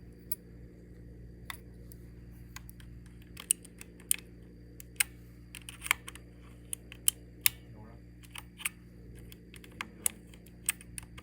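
Irregular sharp plastic clicks and snaps as switches are worked loose and pulled from a hot-swappable mechanical keyboard with a switch puller or flathead screwdriver. There are about twenty clicks, coming more often and louder from about three and a half seconds in.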